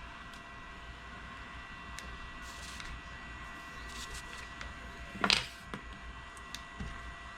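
Handling noises on a workbench: a few faint clicks and one sharper clack about five seconds in, over a steady low hum with a faint high whine.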